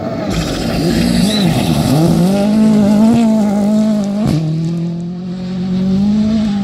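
Rally car passing at speed on a gravel stage, its engine note dipping and climbing several times as it brakes and changes gear into the corner, then holding steadier as it powers away. Gravel and tyre noise run under it, and there is a single sharp crack about four seconds in.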